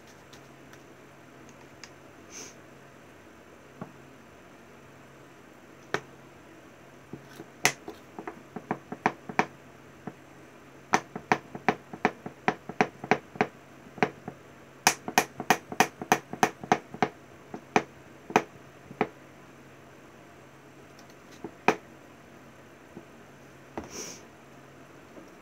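A flock shaker being shaken and tapped over freshly glued model terrain: a run of sharp, irregular clicks, several a second, lasting about thirteen seconds, with a few lone taps before and after.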